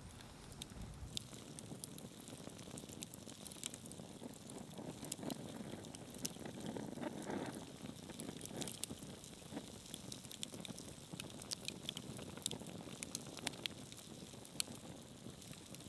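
Wood fire crackling, with sharp pops scattered throughout over a low steady hiss. It swells briefly with a louder rustle about seven seconds in.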